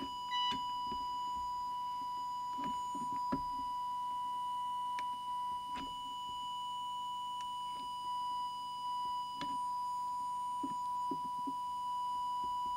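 Steady, unbroken test tone from the signal generator that is modulating the CB transmitter while its FM deviation is set, with a few faint clicks scattered through.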